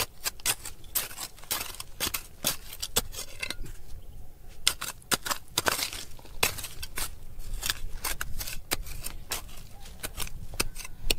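Hand digging tool scraping and knocking through stony soil in quick, irregular strokes.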